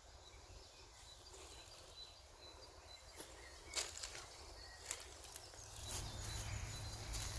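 Quiet outdoor park ambience with faint bird chirps, several sharp clicks and rustles, and a low rumble that sets in about six seconds in.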